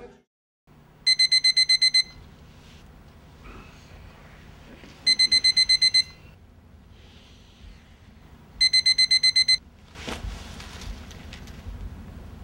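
Spartus quartz alarm clock's alarm going off: three bursts of rapid, high-pitched beeping, about eight beeps to a burst, a few seconds apart. Near the end there is a short rustling noise.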